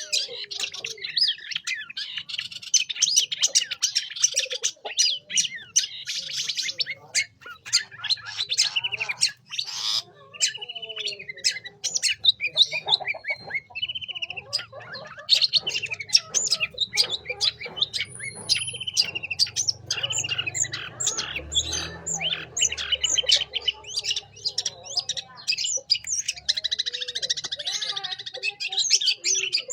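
Long-tailed shrike (cendet) in full song: a fast, near-continuous run of varied chattering notes mixed with harsh squawks. It breaks into more separate calls for a few seconds partway through.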